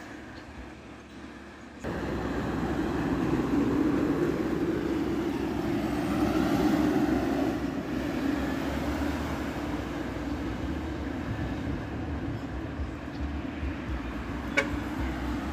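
Diesel engines of a large intercity bus and trucks on a hill road, a steady engine drone that swells as the bus passes close and then holds. A short sharp tone sounds once near the end.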